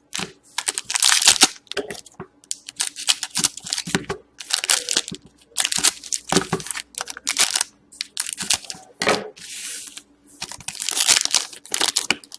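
Hockey card pack wrappers being torn open and crinkled by hand, in a string of irregular rustling, tearing bursts with short pauses between them.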